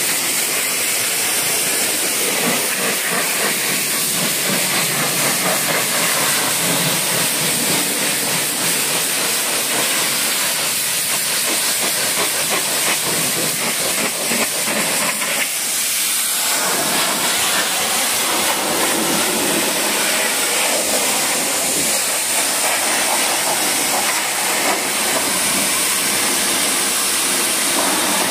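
High-pressure washer jet spraying water onto a car's painted bodywork: a loud, steady hiss of water striking the metal panels.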